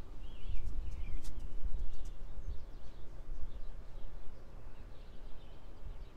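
Small birds chirping in short, wavering phrases, clearest in the first second or so, over a low, uneven rumble.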